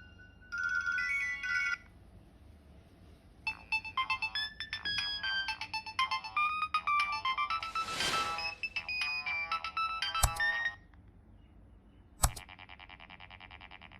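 Nokia 1200 mobile phone playing electronic ringtone melodies: a short beeping phrase, then a longer run of quick, distinct beeping notes. Near the end there are two sharp clicks, and a fast pulsing tone starts.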